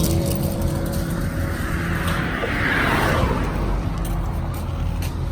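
A vehicle passing by close, its noise swelling and fading about halfway through, over a steady low engine hum.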